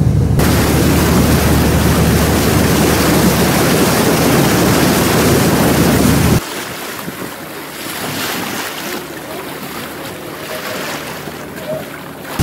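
Wind buffeting the microphone over the steady low hum of a boat's engine. About six seconds in it drops suddenly to a quieter wash of wind and sea water.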